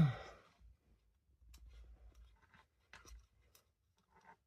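Handling of a small plastic livestock tub: a sharp knock at the start, then a few faint clicks and light rustles.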